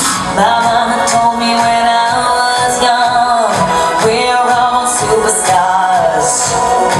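Loud pop dance track with singing over a steady beat.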